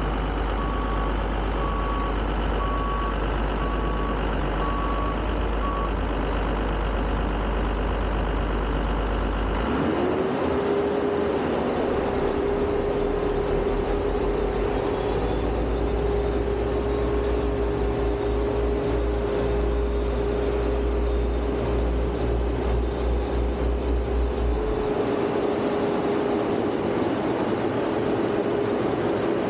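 Hypac double-drum road roller's engine running, with its reversing alarm beeping about once a second for the first few seconds. About ten seconds in, a steady whine rises in and holds until a few seconds before the end.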